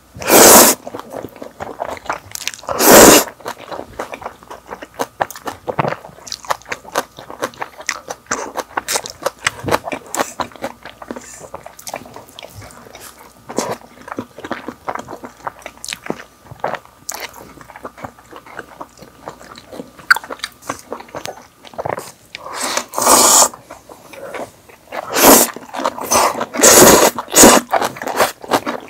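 Close-up eating sounds of two people chewing and crunching boneless sauced fried chicken, a steady run of small crackly bites, broken by several loud slurps of instant black-bean noodles near the start and again in a cluster near the end.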